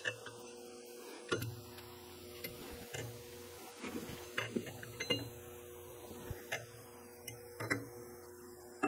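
Outside micrometer being fitted and tightened on polished steel crankshaft journals to check their size: irregular small clicks and light metallic taps from the ratchet thimble and frame, over a faint steady hum.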